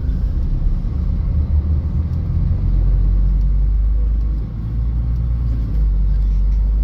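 Steady low rumble with no speech, getting louder about two and a half seconds in and dipping briefly around four and a half seconds.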